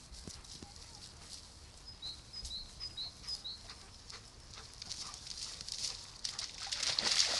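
A dog splashing into the shallow water at a lake's edge, the splashing building near the end. Earlier, a bird gives a quick run of short high chirps.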